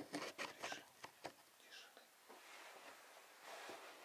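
A hand handling the camera up close: a sharp click, then a quick run of small clicks and rustles in the first second or so, fading to faint rustling in a quiet small room.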